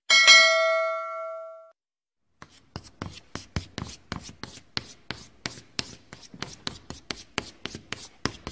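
A chime rings at the start and fades over about a second and a half. After a short pause, a marker pen scratches across a writing surface in quick strokes, about four a second.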